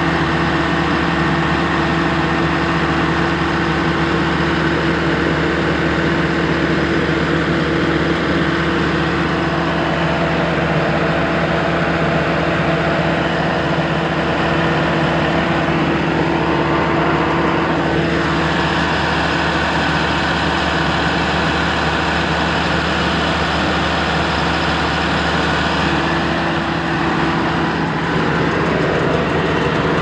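Combine harvester's turbocharged diesel engine running steadily with a constant low hum, its tone shifting slightly a couple of seconds before the end.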